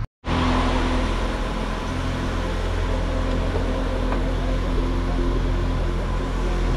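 Steady road and engine rumble inside a moving car, an even hum with a low drone underneath.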